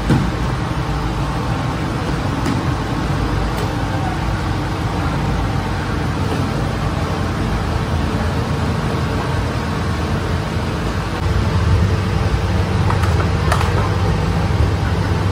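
Steady low mechanical hum of bakery machinery, growing louder about eleven seconds in, with a few faint clicks near the end.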